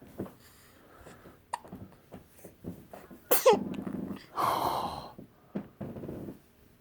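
A baby's small breathy noises and hiccups, then a big sneeze a little past halfway through, followed by snuffly breaths.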